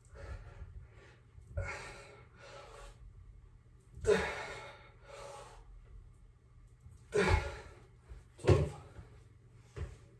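A man breathing out hard in short puffs, one every second or so, while doing bodyweight dips, about seven in all. A few low thuds come with some of the breaths.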